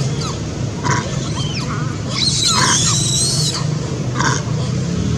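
A monkey screeching and squealing in anger: short shrill calls about a second in and again near the end, with the loudest, longest burst of squealing in the middle. A steady low hum runs underneath.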